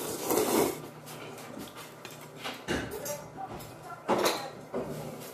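A person slurping hot kalguksu noodles and chewing, with a few short clinks and knocks of chopsticks against the bowl.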